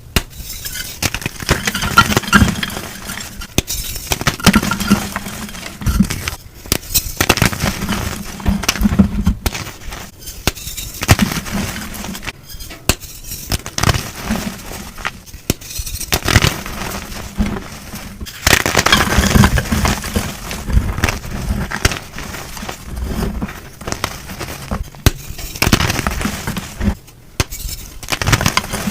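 Blocks of gym chalk being crushed, a dense run of crunching and crackling with louder crunches every second or two.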